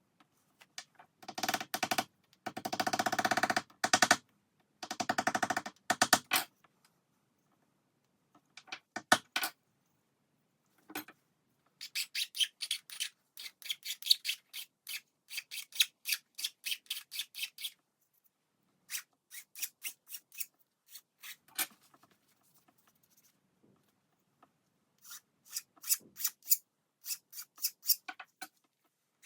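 Rapid back-and-forth hand abrading strokes on the brass end piece of a wooden marking-knife handle, about three to four strokes a second. The strokes come in several runs with pauses between them.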